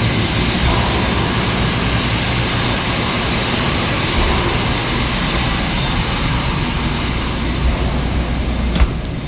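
Steady loud mechanical roar of running industrial equipment with a low hum underneath, and a single sharp click near the end.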